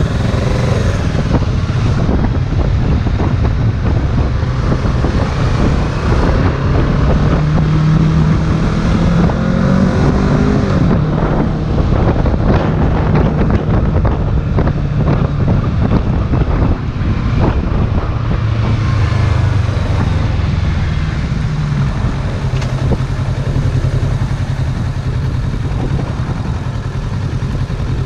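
Motorcycle engine running under way, its note climbing as it accelerates about a third of the way in and again past the middle, with wind rushing over the microphone.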